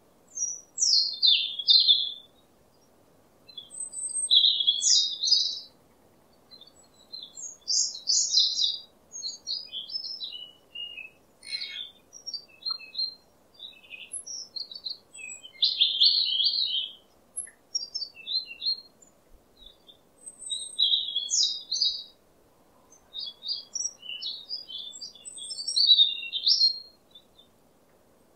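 Songbirds chirping and twittering in short, quick phrases with brief pauses between them, over a faint background hiss.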